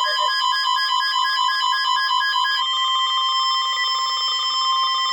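Emergency alert tones for a severe thunderstorm warning: a pulsing, beeping alarm tone that switches about two and a half seconds in to a single steady alert tone.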